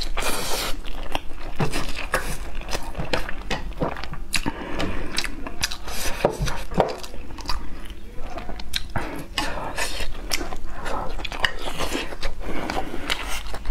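Close-miked eating of braised pork knuckle: chewing with frequent short clicks from the mouth and from chopsticks against the dish.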